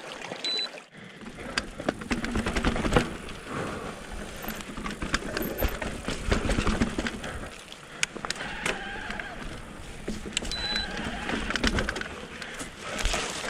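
Electric mountain bike's motor running in walk-assist mode as the bike is pushed, over irregular crunching and clicking from the rough ground. Two short high beeps, about half a second in and again about ten seconds in.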